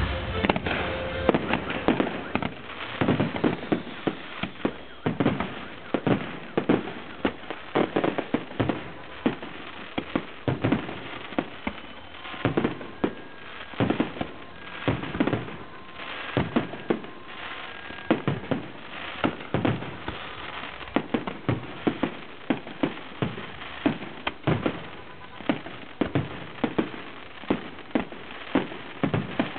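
Fireworks finale barrage: aerial shells launching and bursting in rapid succession, several sharp bangs a second without a break.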